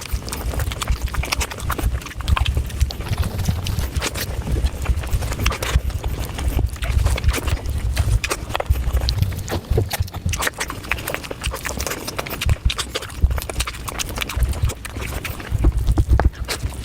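Close-miked eating sounds: chewing and wet mouth clicks and smacks in a quick, irregular run of sharp clicks over a low rumble.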